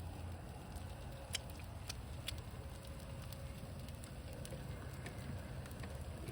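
Meat sizzling on a grill, with scattered sharp crackles and pops over a low steady rumble.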